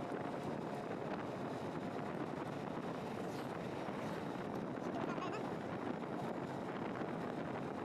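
Steady road and wind noise from a moving vehicle, with wind rushing over the microphone.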